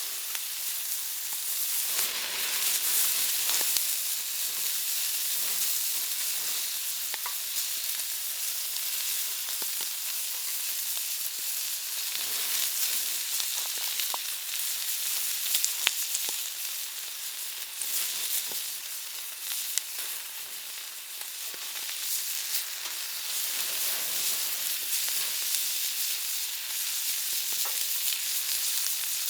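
Pork belly sizzling on a hot griddle over a wood fire: a steady frying hiss with scattered sharp pops of spitting fat.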